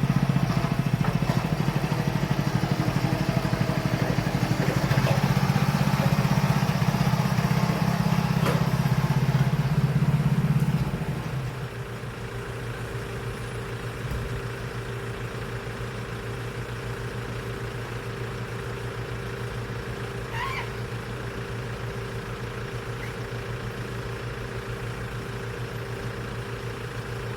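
Small engine of a farm power carrier running steadily, then dropping to a quieter idle about eleven seconds in.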